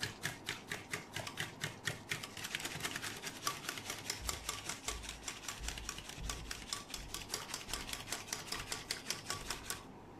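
Hand whisk beating yogurt drink fast in a bowl, clicking against the bowl about five times a second as it whips up froth. The whisking stops near the end.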